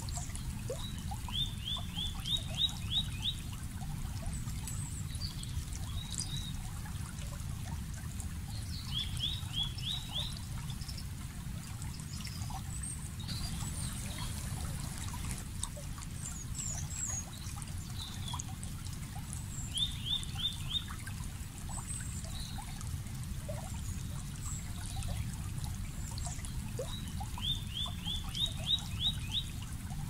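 Water trickling and flowing steadily, with a songbird singing a short run of five to seven quick notes four times and faint scattered chirps from other birds.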